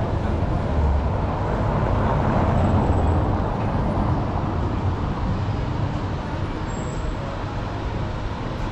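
Street traffic noise, with a motor vehicle's low engine rumble passing close, loudest about two to three seconds in and then easing off.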